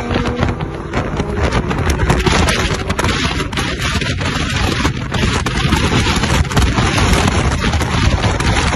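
Heavy wind buffeting on a microphone held at a moving car's open window at highway speed, with steady road and traffic noise beneath.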